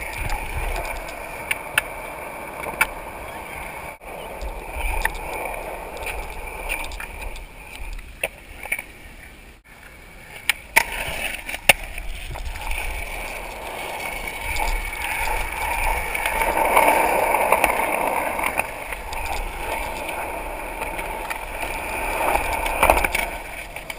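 Skateboard wheels rolling on wet concrete, with several sharp clacks of the board popping and landing at intervals. The sound breaks off abruptly twice, near 4 s and 10 s in, and the rolling grows louder around two-thirds of the way through.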